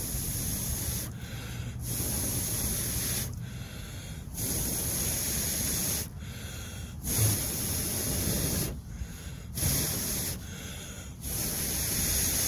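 A person blowing long, steady breaths onto smouldering embers to revive a fire that has just gone out, about six blows with short pauses for breath in between.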